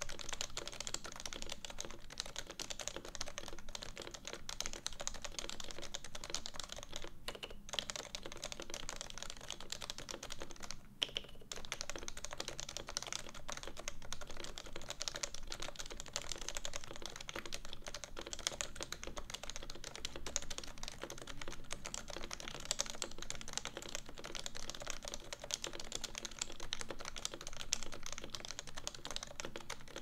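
Realforce 86U keyboard in its stock case being typed on steadily across the letter keys: Topre switches with stock variable-weight rubber domes, unlubed housings and a steel plate. There are two short pauses, about seven and eleven seconds in.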